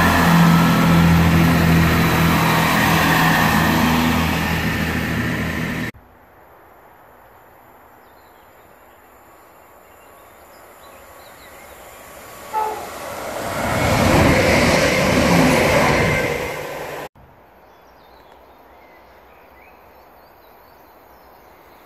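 A Chiltern Railways diesel multiple unit running past close by, its engines humming under the rumble of the wheels. After a cut, a second train sounds a short horn note as it approaches, then rushes past. After another cut, a quiet station platform.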